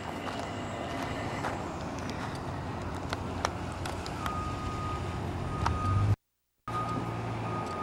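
An engine running steadily with a low hum, joined about four seconds in by a thin, steady high tone; the sound drops out completely for half a second just past six seconds.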